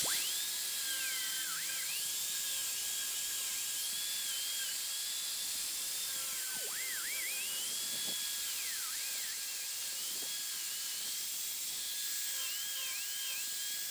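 Electric angle grinder fitted with a sanding disc, running at high speed while sanding a thin strip of wood. Its high whine dips in pitch again and again as the disc is pressed into the wood, then picks back up.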